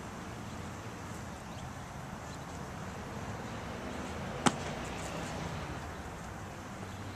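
One sharp, short knock about four and a half seconds in, over steady background noise.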